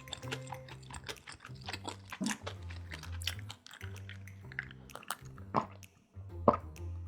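Close-miked eating sounds: many short, crisp crackles of chewing and biting into food. Background music with a steady bass line plays underneath.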